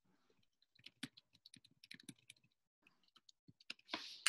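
Faint, irregular small clicks and taps over about three seconds, then a short rustle and a single sharper click near the end.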